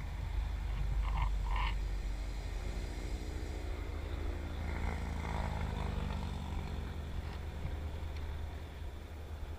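A frog croaking twice, about a second in, over a steady low rumble. Through the middle comes a droning tone that slowly falls in pitch.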